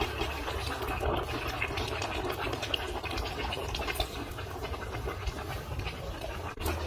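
Whole crabs cooking in a large pan of bubbling oil, with a steady dense sizzle and crackle.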